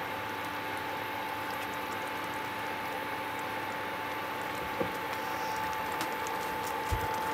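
Thick vegetable gravy simmering in a pan on a portable induction cooktop: a steady bubbling hiss with a few soft pops near the end, over a steady high whine from the cooktop.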